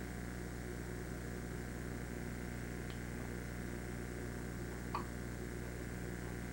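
Steady low electrical hum of room tone, with two faint, short hiccups from an infant, one about three seconds in and a clearer one about five seconds in.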